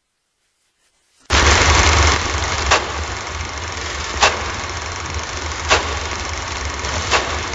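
Film projector running: a steady mechanical whirr over a low rumble that starts about a second in, with a sharp click about every second and a half.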